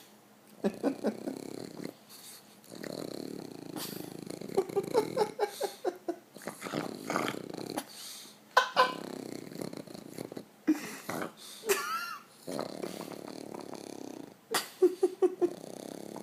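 Awake dog snoring as it breathes: repeated rasping, throaty breaths with short pauses between them, broken by quick runs of rattling pulses and a brief high squeak near the middle.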